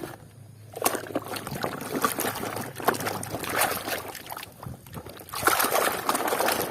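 Water sloshing and trickling as a plastic toy is washed by hand, starting about a second in, with a brief lull near five seconds before louder splashing.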